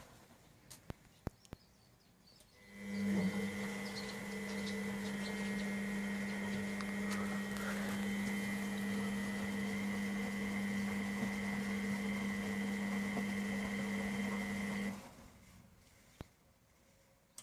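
Miele Professional WS5426 washing machine: a few sharp clicks, then a steady mechanical hum with a low tone and a high whine that starts about two and a half seconds in and cuts off suddenly near the end, followed by one more click.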